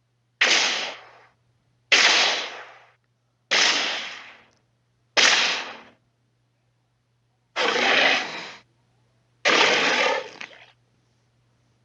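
Six short, harsh Carcharodontosaurus roar sound effects in a row, each about a second long, starting abruptly and fading out, with pauses between them.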